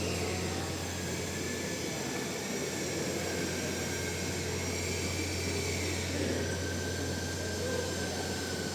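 Metal lathe running: a steady low hum with a faint whine that drops in pitch about six seconds in.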